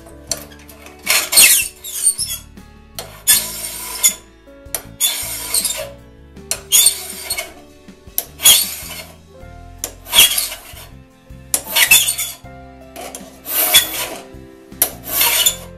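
Steel file rasping across the raker tooth of a one-man crosscut saw, about nine even strokes, one every couple of seconds. It is jointing the raker down to a depth gauge set 15 thousandths below the cutting teeth.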